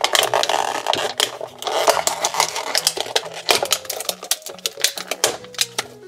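Clear plastic bag crinkling and crackling in rapid, irregular clicks as a toy pretzel wrapped in it is handled and pulled out of a plastic toy microwave. Soft background music plays underneath.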